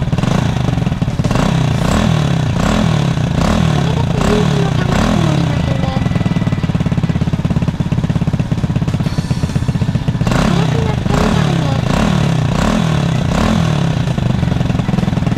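Air-cooled single-cylinder four-stroke engine of a Thai Honda Cub 100EX, swapped into a Honda Little Cub, running steadily just after being built up. The valve train is quiet: the new engine's tappet noise is no problem.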